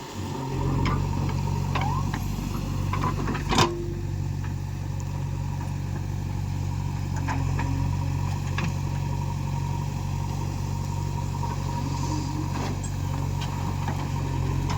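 Heavy diesel engine of an earthmoving machine running steadily, coming up about half a second in, with one sharp knock a few seconds in.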